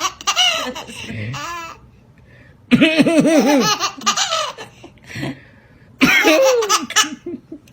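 A baby laughing in three bouts of high-pitched belly laughs with short pauses between, set off by coughing.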